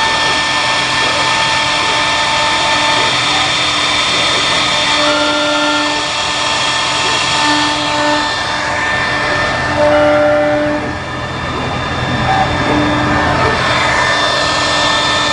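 6090 CNC router running: a steady whirring machine noise with several held tones, and short tones of different pitches that come and go every second or two as it works.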